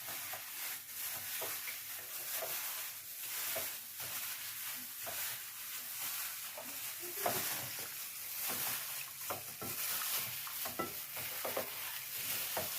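Hands massaging raw chicken pieces with salt and pepper in a bowl: soft, irregular wet squishing and slapping of the meat over a steady hiss.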